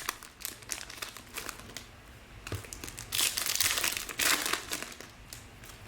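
Plastic packaging of trading-card boxes or packs crinkling and tearing as it is handled and opened, with crackles and short snaps that grow louder about halfway through.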